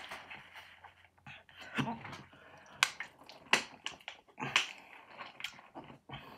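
Close-miked eating of roast chicken: chewing and handling the meat, with a run of sharp, loud hiccups between about three and five and a half seconds in.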